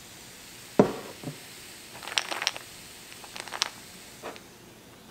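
A low thump about a second in, then ice cubes clinking against a tall glass in two short flurries of sharp clicks as the iced drink is swirled, with a small knock near the end.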